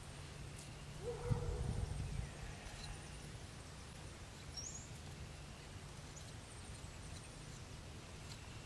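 Quiet outdoor ambience with a steady low hum. About a second in there is one short, low hooting call with a brief rumble, and a faint high bird chirp follows in the middle.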